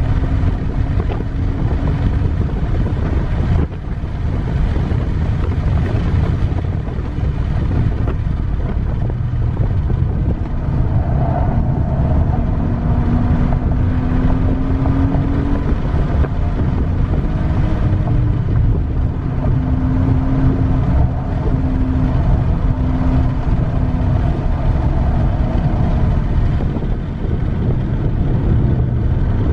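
BMW 330Ci ZHP's 3.0-litre straight-six running hard on track, its note climbing slowly and dropping back several times as it pulls through the gears, under heavy wind and road rumble on the microphone.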